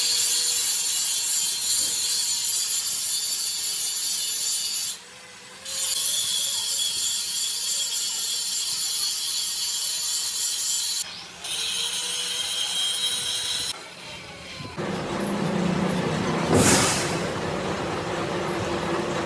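Machining of a steel compressor crankshaft: a steady, high hissing cut that stops briefly three times. From about 15 s a fuller, lower machine noise takes over, with one sharp loud hit near 17 s.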